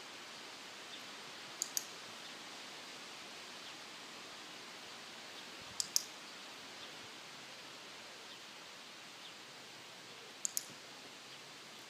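Dog-training clicker pressed three times, each a quick double click, the marker that tells the dog its position is right. A steady hiss runs beneath.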